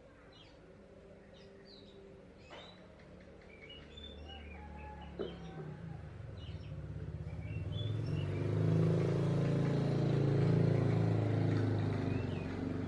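Short, high songbird chirps and calls. About halfway through, a passing motor vehicle's engine builds up and becomes the loudest sound, swamping the birds, then eases slightly near the end.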